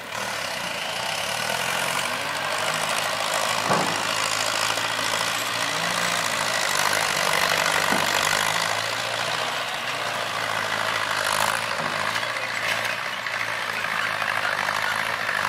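Diesel engines of farm tractors fitted with rear hydraulic grapple loaders, running steadily as they work and drive with a load of logs. Two brief knocks stand out, about four seconds in and about eight seconds in.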